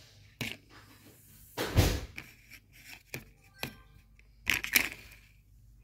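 Scattered clicks and knocks of a plastic board-game spinner being flicked and handled on a wooden floor, with a louder thump about two seconds in and two more knocks near the end.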